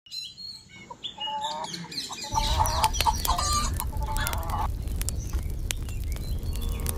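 Domestic hens clucking in short repeated calls, starting about a second in. A little after two seconds a steady low rumbling noise with scattered sharp clicks comes in underneath.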